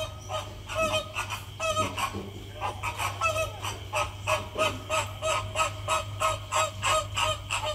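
A group of flamingos calling: rapid, repeated short goose-like honks, two or three a second, overlapping at times.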